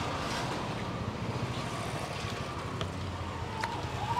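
Steady low rumble of a motor-vehicle engine from road traffic, with a few faint clicks.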